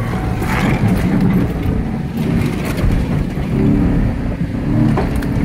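Vehicle engine and road rumble heard from inside the cab while driving at speed; a dense, continuous low rumble.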